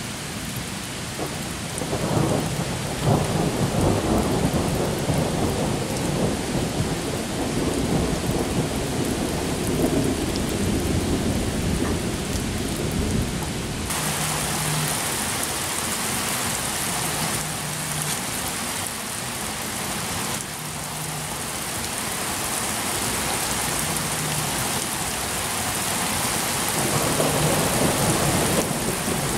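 Thunder rolling over steady rain in a thunderstorm. A long rumble starts about two seconds in and dies away over some ten seconds. About halfway through the rain hiss gets louder, and a second rumble comes near the end.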